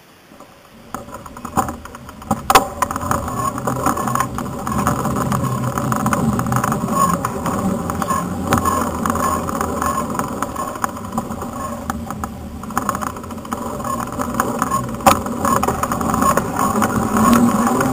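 Mongoose Tyax Elite mountain bike rolling along paved ground, its knobby tyres and rattling frame heard close up as a steady rumble that builds over the first few seconds. A few sharp knocks stand out.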